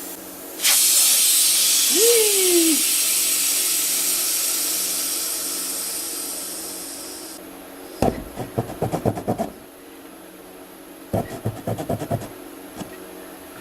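Air rushing out of a lawn tractor tire through the open valve stem after the valve core is taken out. The loud hiss starts about a second in, fades gradually and stops about seven seconds in. Then come two short spells of rapid clicking and rattling.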